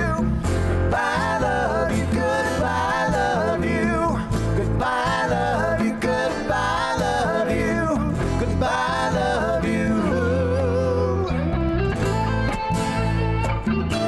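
Live band music from an acoustic rock set: a bending, wavering lead melody over guitars, bass and congas. The lead line drops away about eleven seconds in, leaving the guitars and bass playing on.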